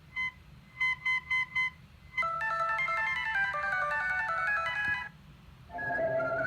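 Electronic alert tones clipped short: five short beeps, then a fast run of synthesized ringtone-like notes that cuts off abruptly about five seconds in. Another melodic tone starts near the end.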